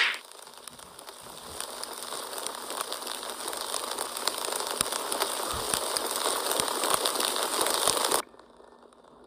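Lit fuse crackling and hissing as it burns, a cartoon sound effect, growing gradually louder for about eight seconds and then cutting off suddenly.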